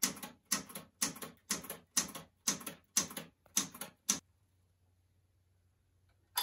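Manual typewriter keys struck slowly and evenly, about two sharp clacks a second, nine in all. The typing stops about four seconds in, and at the very end a click sets off the typewriter's bell ringing.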